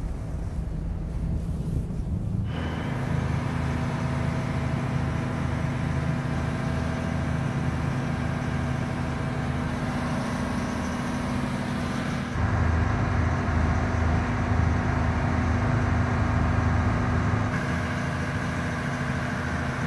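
Inboard engine of a small wooden fishing boat running steadily under way, a low, even drone. It grows louder about two and a half seconds in and again around twelve seconds.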